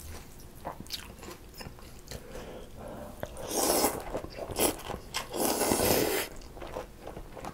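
Cold somyeon noodles in icy mulhoe broth slurped from the bowl: two long, loud slurps, about three and a half seconds in and again about five and a half seconds in, with soft chewing between them.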